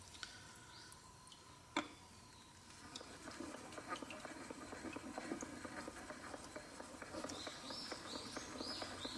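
Faint steady rasping of a plane iron's back being rubbed back and forth on a diamond sharpening plate to flatten it, starting about three seconds in after a single click. Near the end a bird chirps several times.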